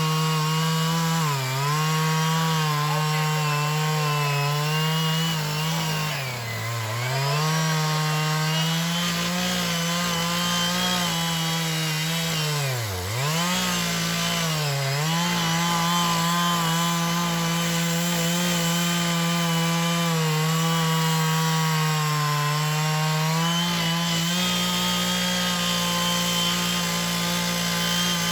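Chainsaw engine running at high speed, cutting wood. Its pitch drops sharply and recovers several times, deepest about six and thirteen seconds in, as the chain is loaded in the cut.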